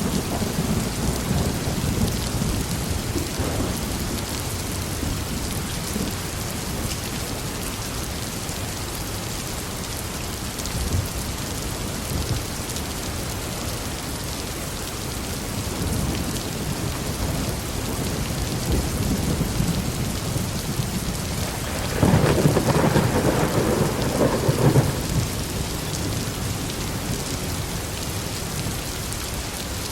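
Heavy rain falling steadily in a thunderstorm, with thunder rumbling. A low roll of thunder fades over the first few seconds, and a louder peal of thunder rumbles for about three seconds roughly three-quarters of the way through.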